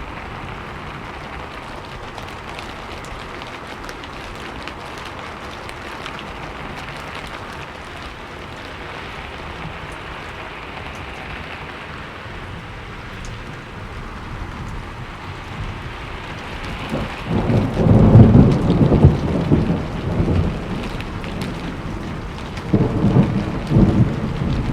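Steady rain falling, then thunder rolls in about two-thirds of the way through: a loud low rumble lasting a few seconds, followed by a second, shorter rumble near the end.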